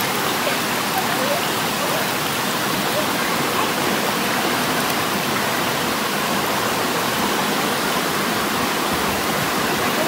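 Steady, even rushing of a waterfall's falling and flowing water.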